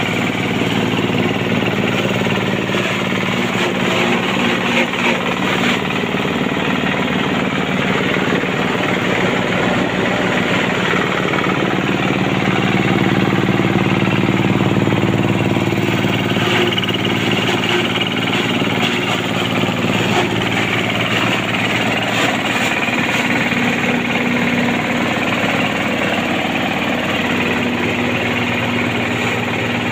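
A 22 hp single-cylinder diesel engine runs steadily with a fast, even pulse as it drives a forage chopper. The sound swells slightly about halfway through.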